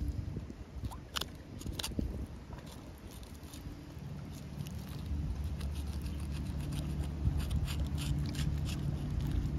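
A fillet knife cutting and scraping along a flathead catfish's backbone makes small clicks and crackles, most of them in the first couple of seconds. From about four or five seconds in, a boat motor's low, steady hum grows louder.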